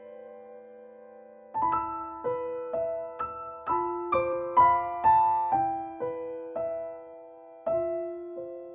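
Solo piano music. A held chord fades out over the first second and a half, then a slow melody of struck notes and chords follows at about two notes a second, each ringing and dying away.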